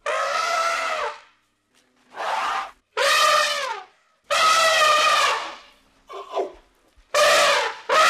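African elephant trumpeting: a run of about seven loud, brassy calls, each under a second and a half long, with short silences between them.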